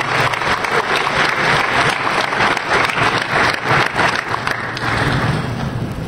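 Audience applauding: many hands clapping at once, easing off slightly near the end.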